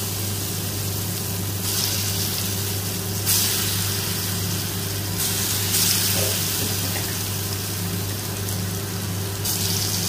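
Chana dal vada batter deep-frying in hot oil in a kadai: a steady sizzling hiss that swells louder three times as fresh lumps of batter go into the oil.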